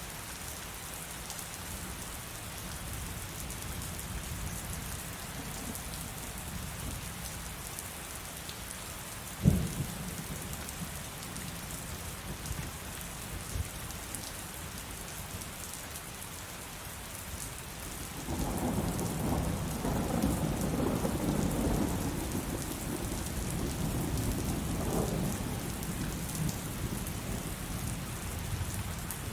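Steady heavy rain with thunder: one sharp thunderclap about a third of the way in, then a long rolling rumble of thunder that begins about two-thirds of the way through and lasts several seconds.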